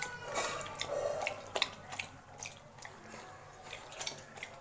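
Dog lapping water from a stainless steel bowl: a series of short wet laps.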